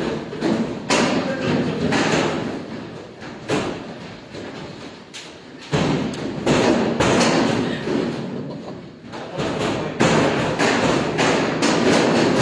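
Noodle dough being swung and slapped against steel worktables while it is hand-pulled: irregular thumps and slaps over a steady kitchen din, coming thick and fast near the end.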